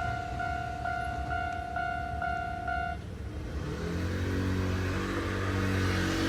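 Level crossing warning bell ringing about twice a second, then stopping about three seconds in as the crossing clears after the train has passed. After that a road vehicle's engine rises as it pulls away.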